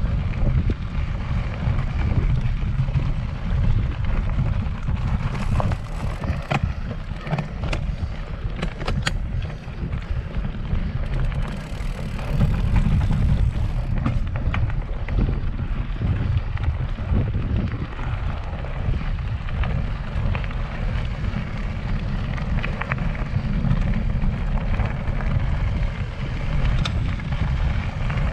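Wind rumbling steadily on the microphone while a cross-country mountain bike rides over rough trail, with many scattered clicks and rattles from the bike and the ground.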